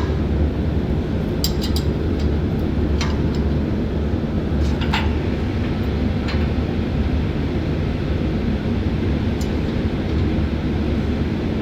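Steady low drone of shipboard machinery, with scattered sharp metallic clinks of hand tools such as a spanner or ratchet working on a pipe fitting.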